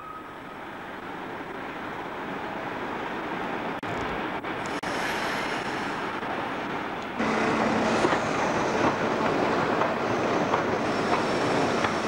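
Electric trains running through a station: wheels on rail joints and traction motor noise. About seven seconds in, after a cut, a louder, steadier running noise with a low hum, from the electric rack railcar of the Rochers de Naye line moving in its covered station.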